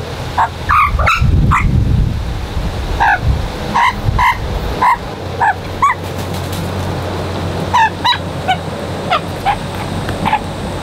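Australian magpies calling while being hand-fed: short, repeated squawks, several a second at first, then fewer and more spread out after about six seconds. A low rumble comes in about a second in.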